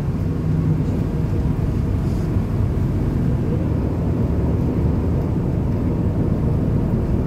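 Steady low rumble of a Volgabus 4298.G4 city bus under way, its running gear and engine heard from inside the passenger cabin.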